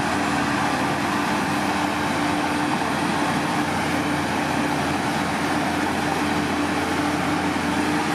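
Heavy diesel engine of earthmoving machinery running steadily under load, with a steady droning tone over dense mechanical noise.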